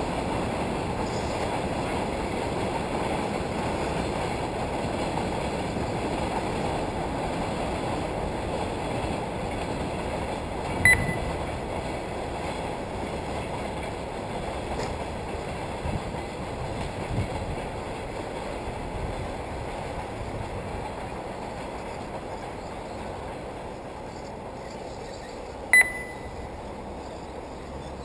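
2WD radio-controlled short course cars running on a dirt track: a steady rushing, clattering noise that eases off over the second half. Two short, high electronic beeps stand out, about fifteen seconds apart.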